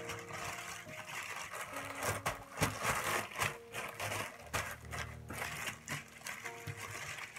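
Thin plastic bags crinkling and rustling in the hands as they are folded and twisted shut, with many quick irregular crackles.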